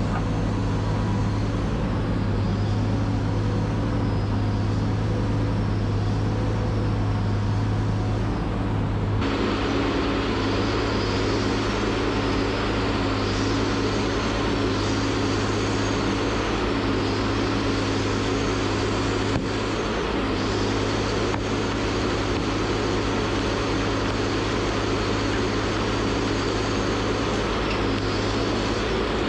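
Tracked feller buncher's diesel engine running steadily with its hydraulics. About nine seconds in the sound turns abruptly fuller and noisier.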